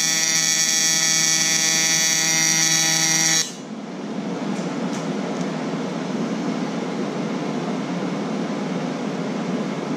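TIG welding arc on diamond plate, a steady electric buzz that cuts off suddenly about three and a half seconds in as the weld is finished. A steady low rushing noise remains after it, with a few faint ticks just after the cut-off.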